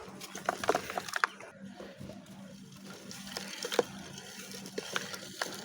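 Dry lumps of Multani Mitti (fuller's earth clay) crumbling and cracking apart, a dense run of small crackly crunches in the first second and a half, then scattered crunches with one sharp crack about midway.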